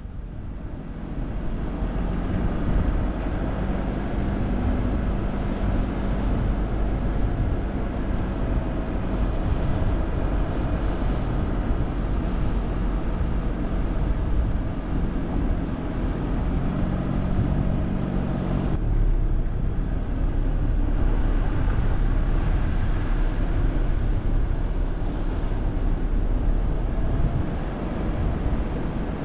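Steady outdoor rumble with a low hum; the hum stops abruptly about two-thirds of the way through.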